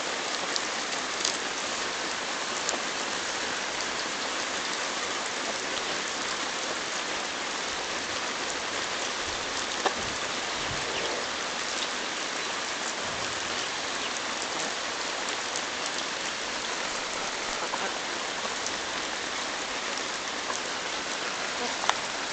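Steady hiss of rain, with occasional light taps of chickens pecking at a hand-held corn cob; one tap about ten seconds in is louder.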